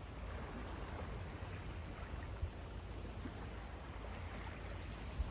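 Sea surf washing on the shore: a steady hiss with a low rumble underneath.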